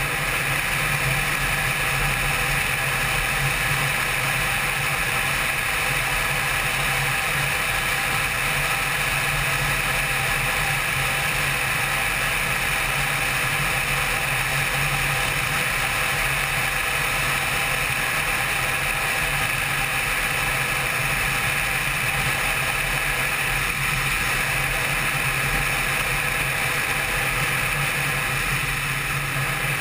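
Honda CBR600 sport bike's inline-four engine running at a steady cruise, heard from a helmet-mounted camera along with the rush of wind, with no change in engine pitch.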